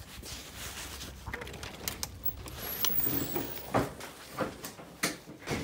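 A storm door being opened and gone through: latch clicks and several sharp knocks and thumps, the loudest a little before the four-second mark, mixed with the rustle of a jacket rubbing on the phone's microphone.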